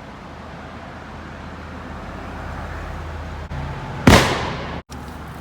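A single gunshot, one sharp loud crack about four seconds in, followed by a short echoing tail.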